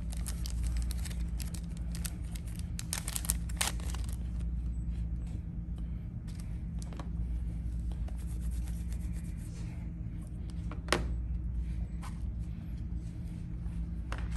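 Hands handling a smartphone, its box and a small plastic security sensor on a table: rustling and small clicks, busiest in the first few seconds, with one sharper click about eleven seconds in. A steady low hum of the room runs underneath.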